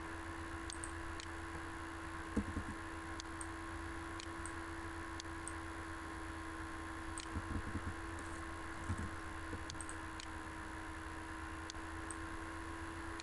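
Faint computer mouse clicks, about a dozen scattered irregularly, over a steady microphone hum and hiss.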